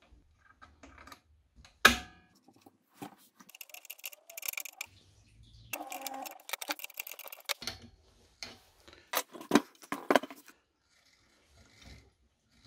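Small metal clicks and rattles of the rear axle nut, washer and belt-tensioner bolt being handled and fitted on an electric scooter's rear wheel, with a sharp click about two seconds in and a few more clicks near the end.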